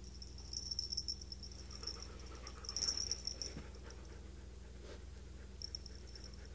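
Siberian husky panting during play, with two louder stretches of quick breaths about a second in and again around three seconds in.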